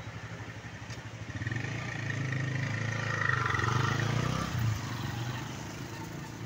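Motorcycle engine running as it passes close by: it grows louder from about a second in, is loudest around three to four seconds in, then fades.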